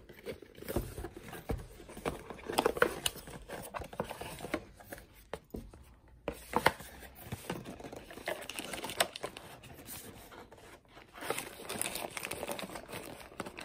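Cardboard packaging and paper leaflets being handled: irregular rustling and sliding, with scattered light taps and knocks as the camera's inner cardboard box is pulled out of its retail box.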